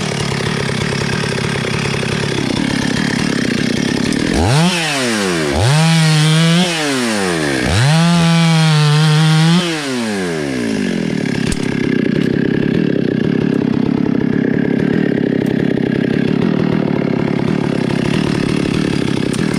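Gasoline chainsaw running, revved up three times to full throttle about four to ten seconds in, each rise in pitch held briefly before dropping back; after that it runs steadily under load, cutting into the trunk of a rain tree.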